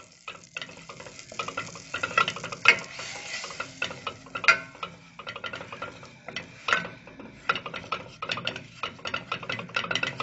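Wooden spoon stirring flour into melted butter in a stainless steel pot, scraping and knocking against the pot in quick, irregular strokes: the roux being worked at the start of a béchamel sauce.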